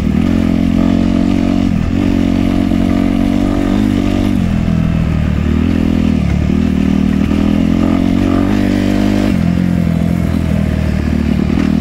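Suzuki dirt bike engine running hard under way, its note dipping and climbing back about four times.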